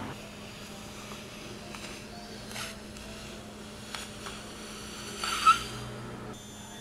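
Hands handling an inflated rubber balloon, the rubber squeaking a few times under the fingers, loudest with one sharp squeak about five and a half seconds in. A steady low hum runs underneath.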